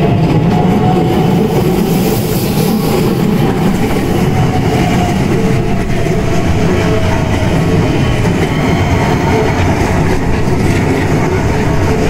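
Keisei 3050-series and 3100-series electric commuter trains passing close by one after the other, with a loud, steady noise of wheels on rails.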